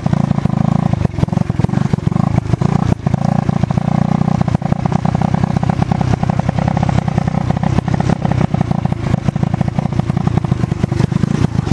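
Dirt bike engine running under throttle while riding a sandy woodland track, eased off briefly a few times.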